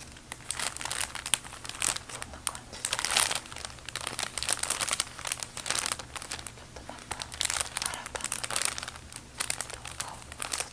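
A bag being crumpled and handled for ASMR: continuous irregular crinkling in uneven clusters of sharp, crackly rustles.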